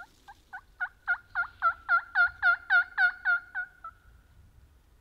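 Mouth-blown turkey call giving a hen yelp series: about fourteen evenly spaced yelps, about four a second, each breaking from a higher to a lower pitch, growing louder toward the middle and fading out near the end. Hen yelping like this is used to call a gobbler in.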